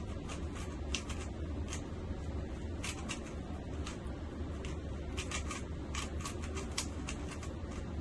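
A Rubik's cube being speed-solved by hand: irregular quick plastic clicks from the turning layers, bunched into fast runs in the second half, over a steady low hum.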